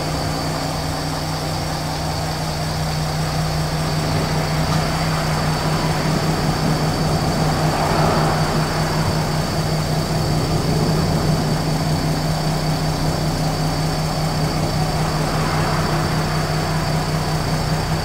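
A car engine idling steadily, clunking away with an even low pulsing hum.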